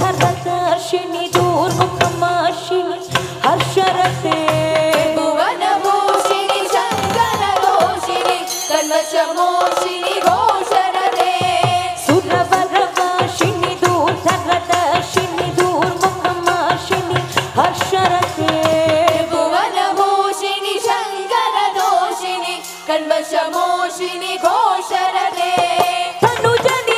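Live Hindu devotional bhajan: women singing a chant into microphones over steady hand-drum rhythm.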